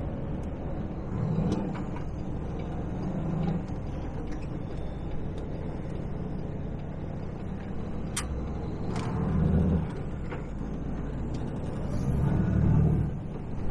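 Semi-truck engine and tyres heard from inside the cab on a wet road: a steady low drone that swells louder four times. A sharp click comes about eight seconds in.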